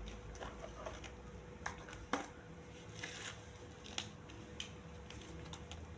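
Faint handling sounds: a few light clicks and knocks, the sharpest about two seconds in, with a brief soft rustle, over a faint steady hum.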